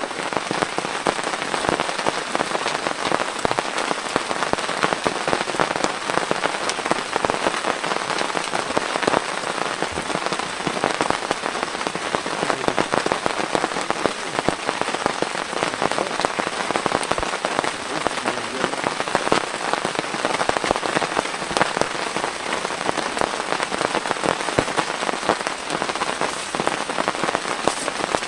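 Steady rainfall, a dense, even patter of many drops.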